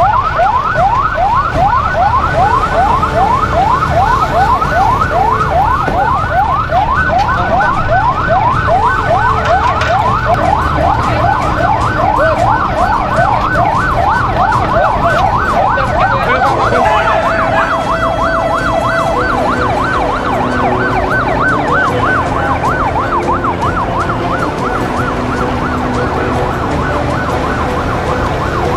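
Electronic emergency siren wailing in a fast yelp, its pitch rising over and over about four times a second, over a steady low rumble. About two-thirds of the way through, a steady tone sounds for about two seconds alongside it.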